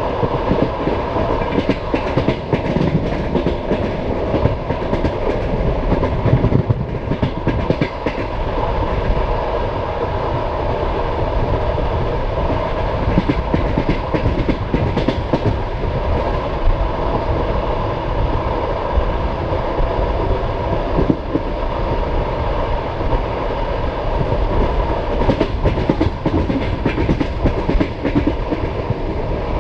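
Passenger train carriage running along the track: a steady rumble with the deep clickety-clack of its wheels over rail joints, the clacks bunching up now and then.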